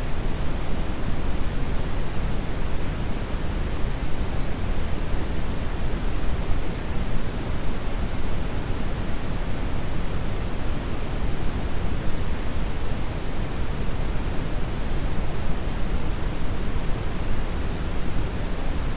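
Brown noise: a steady, even rushing hiss weighted heavily toward the low end, deep and rumbling with little treble, unchanging throughout.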